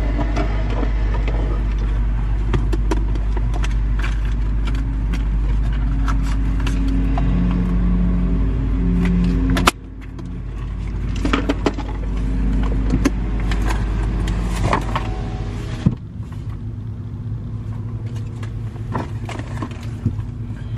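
Car cabin noise: a steady low road and engine rumble with scattered light clicks and knocks. About ten seconds in the rumble breaks off abruptly, then builds back up and is weaker near the end.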